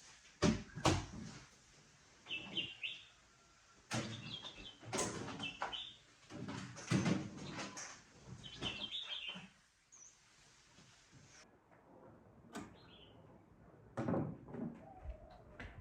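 Irregular knocks and clatters, a few close together, mixed with several short flurries of high bird chirps.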